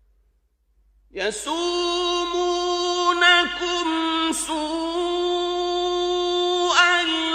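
Male Quran reciter chanting in the melodic tajweed style. After about a second of silence he holds a long drawn-out note, decorated with small melodic turns.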